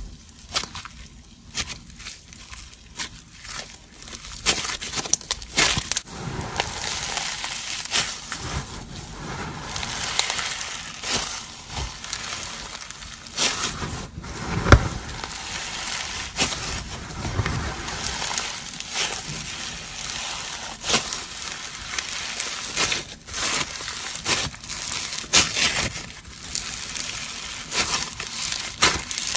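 Floam, slime packed with tiny foam beads, crackling and crunching as hands squeeze, knead and stretch it: a dense run of small pops and crackles, quieter for the first few seconds, with one sharp louder snap about halfway through.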